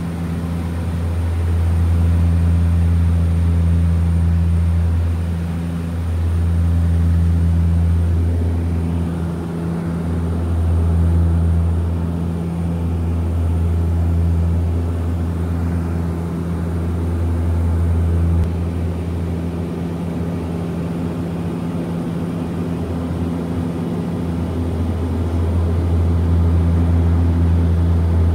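Cabin drone of a Viking DHC-6-400 Twin Otter's two Pratt & Whitney PT6A turboprops in flight: a deep steady propeller hum that swells and fades every few seconds. The lowest hum eases off after about eighteen seconds and comes back strongly near the end.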